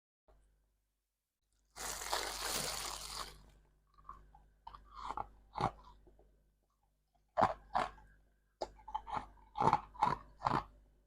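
Frosted ice roses being eaten: one long, loud crunching bite about two seconds in, then a series of short, sharp crunches as the ice is chewed.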